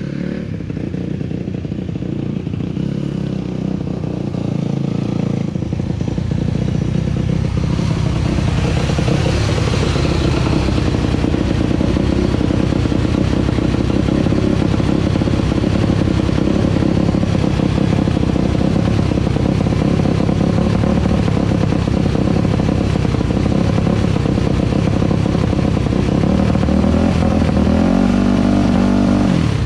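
2001 Yamaha YZ426F's single-cylinder four-stroke engine running steadily after its rebuild with a new cam chain, getting louder about six seconds in. It cuts off abruptly right at the end.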